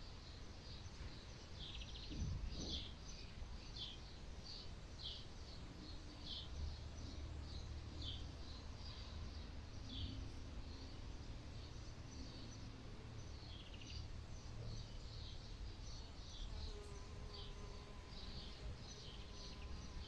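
Faint outdoor ambience of short, high bird chirps repeating about once a second, with a low, steady bee buzz coming in about five seconds in.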